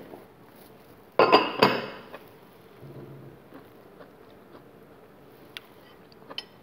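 Metal spoon clinking and scraping against a plate in two quick strokes about a second in, then quiet chewing with a few faint clicks of cutlery.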